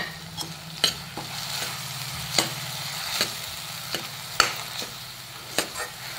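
A steel ladle stirring and scraping skunk vine leaf paste with potato frying in a stainless steel kadai, over a steady sizzle, with several sharp clinks of the ladle against the pan.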